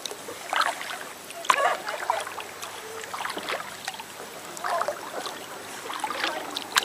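Kayak paddling on a slow river: paddle blades dipping and dripping water, with faint distant voices now and then and one sharp knock near the end.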